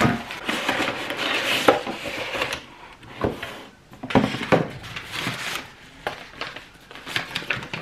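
Packing paper and bubble wrap rustling and crinkling as a cardboard box is opened and a blue-and-white Spode ceramic cake-stand plate is unwrapped, with a run of light clicks and knocks near the end as the plate and box are handled.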